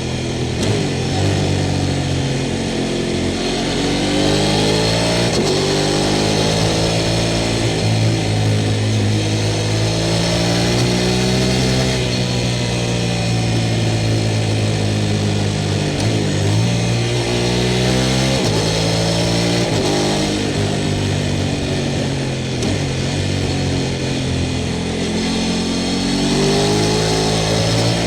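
Sport motorcycle engine being ridden hard, its pitch rising and falling again and again as it accelerates and slows.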